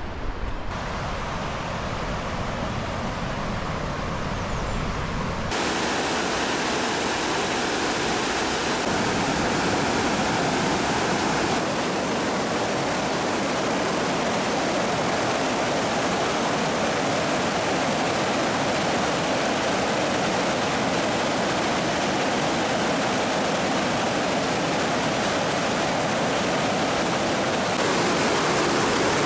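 Rushing water of river rapids and a small waterfall pouring over rock ledges, a steady noise that gets louder and fuller a few seconds in.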